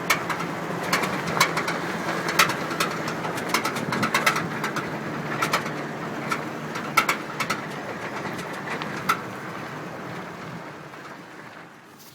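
2009 Toyota Tacoma 4x4 making a noise its owner cannot identify: a steady low hum with irregular sharp clicks and rattles over it. The whole sound fades gradually over the last few seconds.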